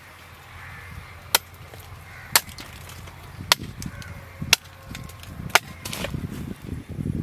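Damascus steel hunting knife chopping into a tree trunk: five sharp strikes of the blade on the wood, about one a second.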